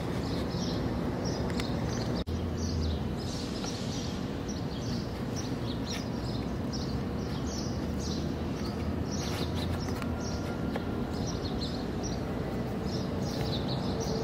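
Birds chirping in short repeated calls over steady outdoor background noise with a low hum, which cuts out for an instant about two seconds in.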